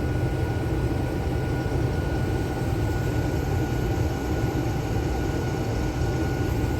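Combine harvester running steadily, heard from inside its cab: a constant low engine rumble with a thin steady whine over it.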